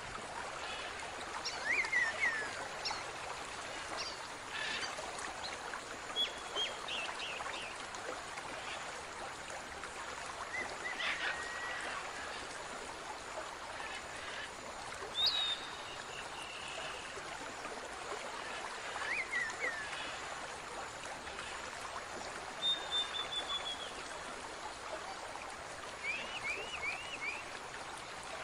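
Steady running-water hiss, with short high bird chirps every few seconds.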